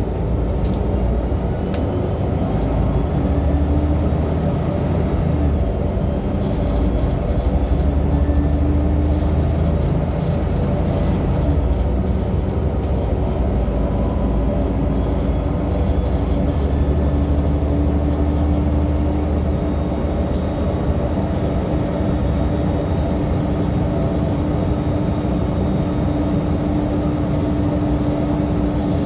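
Transperth bus TP1230 running, with a loud, steady low rumble and a steady hum over it; the deep rumble swells a little at times.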